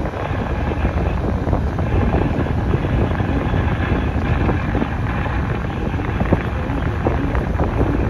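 A steady, loud rushing noise, heaviest in the low end, with no distinct tones or clear separate events.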